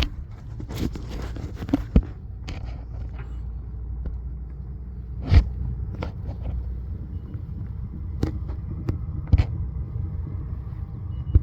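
A steady low rumble with five or six sharp knocks and clicks spread through it: handling noise around an air-conditioning coil while it is inspected for a refrigerant oil leak.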